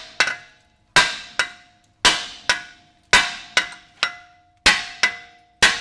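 A hammer striking a front brake rotor on the flat between the wheel studs, about a dozen sharp metallic blows that mostly come in pairs about a second apart, each leaving the rotor ringing briefly. The blows are meant to break the corrosion bond between the rotor and the hub so that the rotor can come off.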